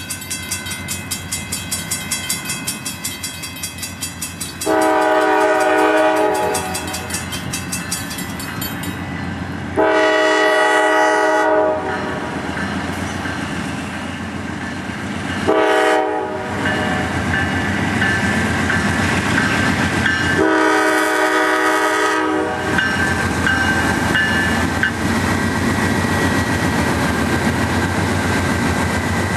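Multi-chime air horn of a departing Norfolk Southern freight train's GE Dash 9-40CW lead locomotive sounding the grade-crossing signal: long, long, short, long. After it, the train's steady running rumble builds as cars roll past.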